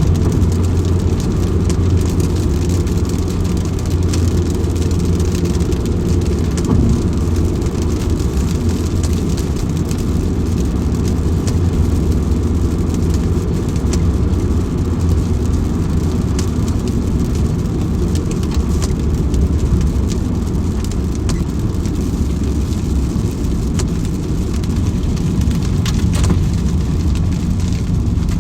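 Steady rain with fine scattered drop ticks over a loud, unbroken low rumble.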